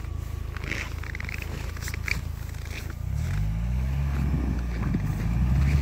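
UAZ Patriot SUV engine running low, then revved up about three seconds in and held under load as the vehicle, high-centred on its belly in deep snow, drives to get out. A few short high squeaks come before the revving.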